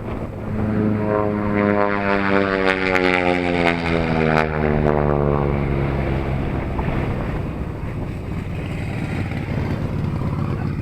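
An airplane passing low overhead, its engine note swelling about a second in and then falling steadily in pitch as it goes by and fades. Wind buffets the microphone throughout.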